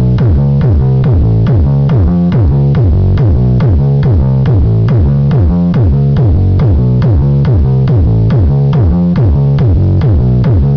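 Loud electronic dance music played through a car-audio sound trailer's speakers: a fast steady beat of about three a second over heavy bass, each bass note sliding down in pitch.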